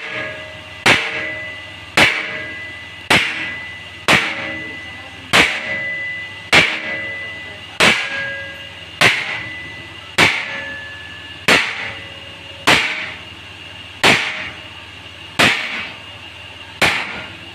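Hammer blows on the steel bars of a combine thresher basket, about fourteen strikes roughly a second apart, each with a metallic ring that dies away. The blows knock the cut bars out of the grille so they can be straightened and refitted.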